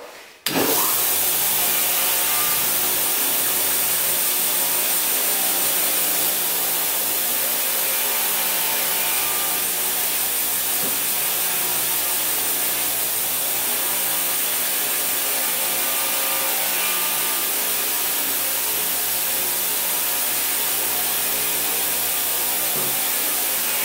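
Homemade belt grinder, a 2-horsepower motor driving a 2-inch abrasive belt at about 3,600 feet per minute, starting abruptly about half a second in and then running steadily. A steel iceboat runner is being ground along the belt.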